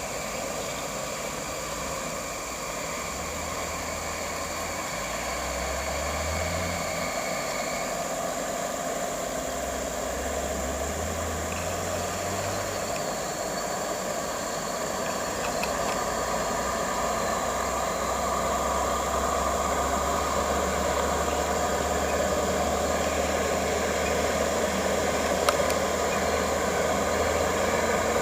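Diesel engine of a timber-laden truck running under load. Its pitch rises twice in the first half, then it holds a steady note and grows gradually louder.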